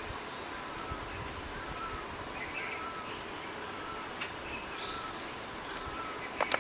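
Outdoor ambience of birds calling, one repeating a short note about once a second, over a steady high-pitched insect drone.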